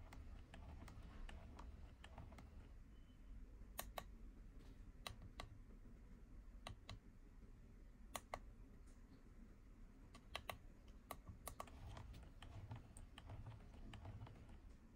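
An auto clicker's vertical plunger rod pressing a computer keyboard key, giving faint key clicks at irregular intervals, some single and some in quick pairs.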